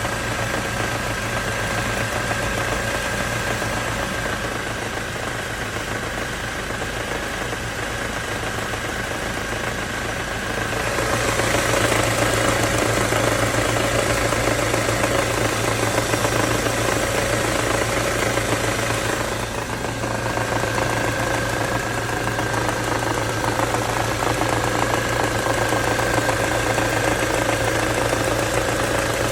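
Ford Mondeo Mk4 2.3 inline-four petrol engine idling with a steady knock. The owner places the knock between the first and second cylinders. The engine grows louder about a third of the way in and settles back about two-thirds through.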